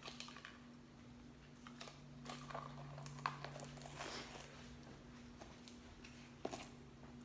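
Faint crinkling and light clicks of something being handled, with a sharper click about three seconds in and another near the end, over a steady low hum.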